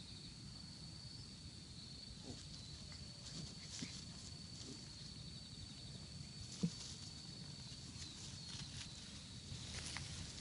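A steady, high insect trill runs throughout, with soft rustling of puppies scuffling in grass and one sharp knock about two thirds of the way through.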